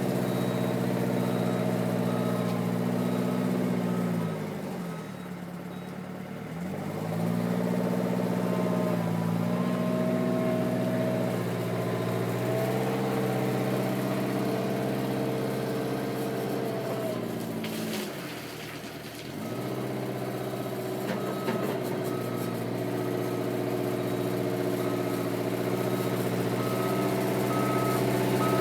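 Diesel engine of a Eurocomach E 235 K backhoe running steadily; its pitch drops and comes back up twice. A travel/reversing alarm beeps about once a second through the second half.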